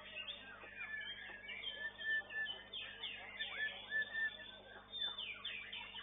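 Caged songbird singing a fast, varied run of short whistles, chirps and gliding notes, over a faint steady hum.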